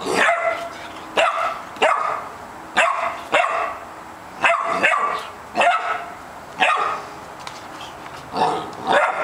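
Yellow Labrador puppy barking at a bone: about a dozen short, high-pitched yaps, singly and in quick pairs, with a short pause near the end.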